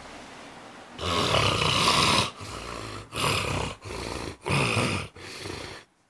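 A sleeping man snoring loudly through an open mouth: one long harsh snore about a second in, then a quick run of shorter snores, each a little over half a second, that stops abruptly near the end.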